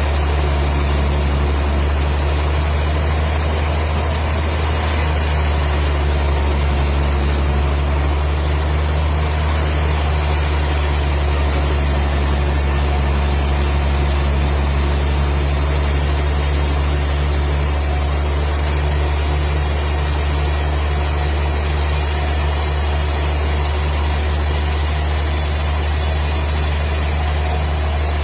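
Engine of a wood processing machine running steadily with a deep, even hum.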